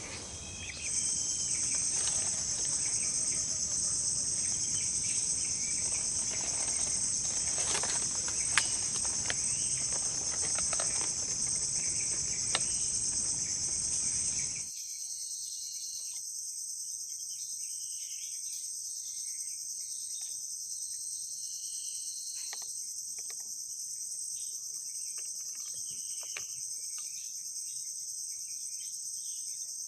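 Steady, high-pitched insect chorus. Over the first half, a rushing noise of wind on the microphone and a few sharp clicks lie under it; these stop abruptly about halfway through, leaving the insect chorus alone.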